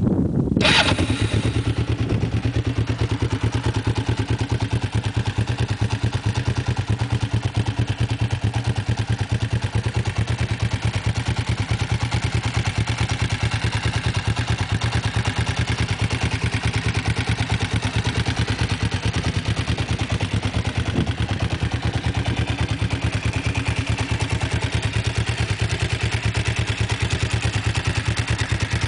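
Kawasaki GPZ motorcycle engine just caught at the start, then idling steadily with an even rhythm.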